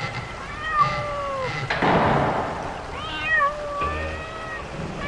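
A cat meowing in drawn-out, bending calls, several times in two bouts. A short burst of noise breaks in about two seconds in.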